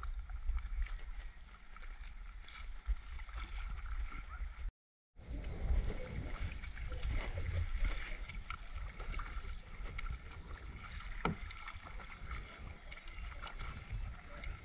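A plastic kayak being paddled through shallow, weedy water: paddle strokes and the hull swishing and scraping over weeds, with a low rumble of water and wind underneath. The sound cuts out for about half a second five seconds in, and there is one sharp knock near eleven seconds.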